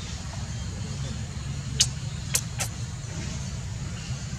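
Outdoor background: a steady low rumble, with three sharp clicks in quick succession about two seconds in.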